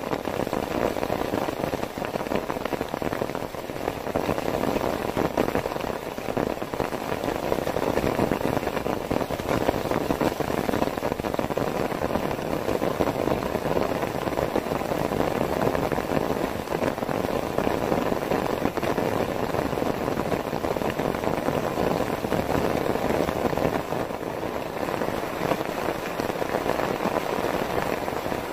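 Heavy rain pouring down steadily, a dense even rush of drops with no let-up.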